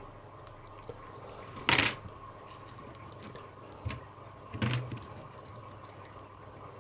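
Small metal clicks and taps of lock pins, springs and tools being handled while a padlock cylinder is loaded, with a sharper clatter about two seconds in and two more near four and five seconds.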